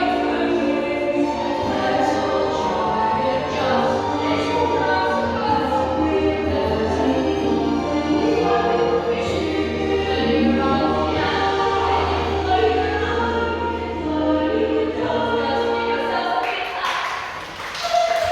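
Background music of a choir singing sustained chords over a low held bass, ending near the end.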